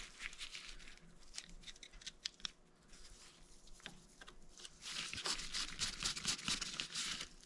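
Small clicks and scraping of a screwdriver against a Honda GL1500 Gold Wing's front brake caliper as the pad pin cap is fitted, with light rustling of the gloved hands.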